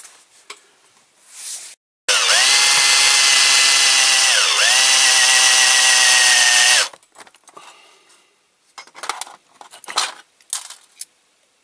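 Small electric drill running for about five seconds, drilling out a rivet on a diecast model; its pitch sags as the bit bites into the metal, once at the start and again about halfway, then recovers. Light metallic clicks and rattles follow after it stops.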